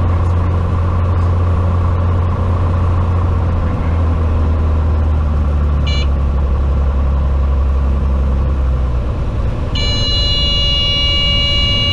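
Cessna 182T's six-cylinder Lycoming engine and propeller droning steadily, with the deep drone fading out about nine seconds in. A cockpit warning horn chirps once about six seconds in, around the touchdown, then sounds steadily from about ten seconds in to the end.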